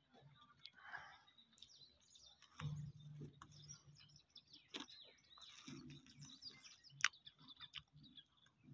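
Faint outdoor ambience with scattered bird chirps and clicks, a sharp click about seven seconds in, and a low hum that comes and goes twice.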